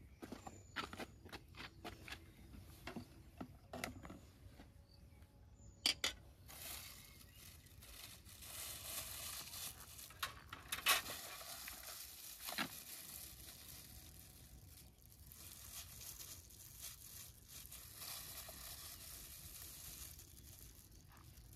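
Kitchen handling sounds: a string of small clicks and knocks, with sharper knocks about six and eleven seconds in, then steady rustling and squishing as plastic-gloved hands mix food in a pot.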